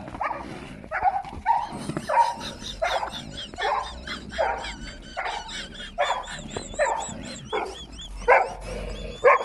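A dog barking repeatedly, about a dozen short barks in a steady series.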